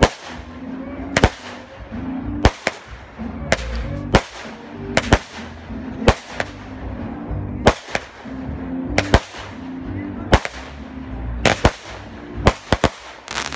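Aerial fireworks bursting: a string of sharp bangs, irregularly spaced, coming one or two a second.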